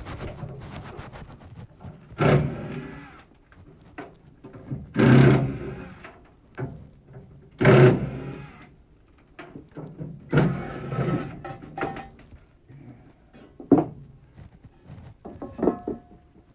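Gas furnace being taken apart: four short, loud bursts of noise a few seconds apart, with scattered knocks and clicks of parts being handled between them.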